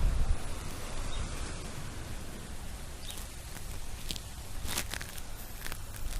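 Ocean surf washing on the beach as a steady hiss, with a loud low rumble at the start. From about halfway on come a few short scuffs of footsteps in sand and faint bird chirps.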